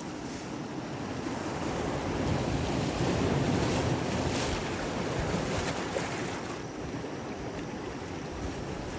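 Sea waves washing onto the shore, with wind buffeting the microphone; the surf swells to its loudest a few seconds in, then eases.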